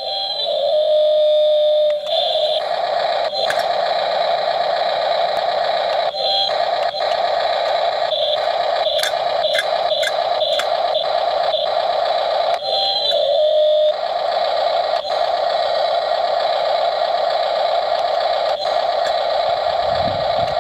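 Electric motors and gearboxes of a 1:16 Double E radio-controlled excavator whining steadily as the boom, arm and bucket move. The whine shifts pitch or drops out briefly a few times as functions switch, with a few light clicks.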